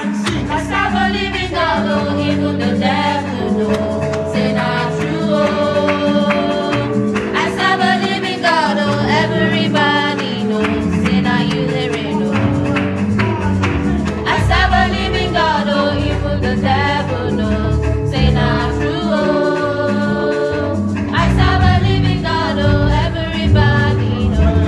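Church choir rehearsing a gospel song: several voices singing over sustained instrumental accompaniment.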